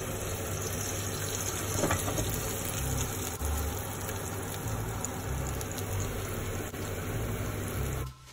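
Hot oil sizzling in a frying pan, a steady hiss with a low rumble under it, starting suddenly and cut off just before the end.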